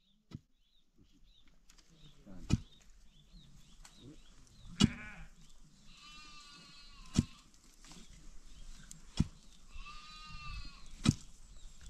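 Sheep bleating three times, the last two long wavering bleats of about a second each. Five sharp knocks come about two seconds apart and are the loudest sounds.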